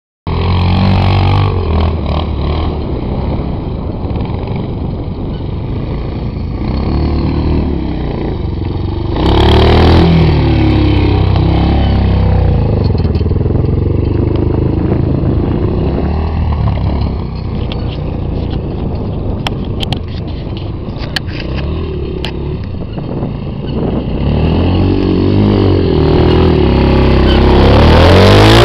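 Suzuki quad bike's engine running and revving as it rides over loose sand, with a burst of revs about ten seconds in. It gets louder near the end as it passes right by.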